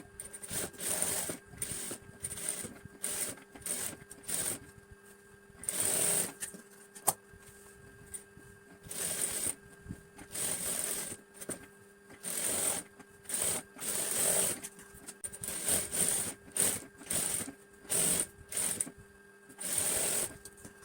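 Sewing machine stitching in many short stop-start runs, each from a fraction of a second to about a second long, as design pieces backed with paper canvas are sewn onto lining cloth. There is a single sharp click about seven seconds in.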